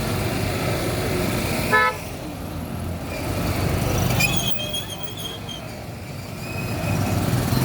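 Street traffic with vehicle engines running and a short, loud car horn toot about two seconds in. A second, higher-pitched beep comes a couple of seconds later.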